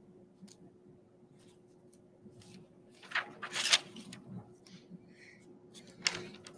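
Paper and dry leaves being handled on a tabletop: soft rustling and crinkling, loudest about three to four seconds in and again near six seconds, over a faint steady hum.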